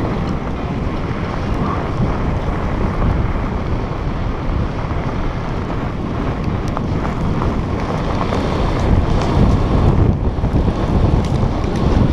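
Wind buffeting the microphone while riding a mountainboard downhill, mixed with the rumble of the board's wheels rolling over a dirt and gravel track. The noise is steady and swells slightly about nine seconds in.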